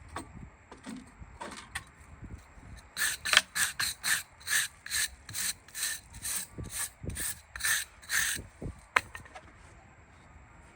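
Farrier's rasp filing a horse's hoof: about a dozen even strokes, roughly two a second, after a few seconds of quieter handling. A single sharp click follows near the end.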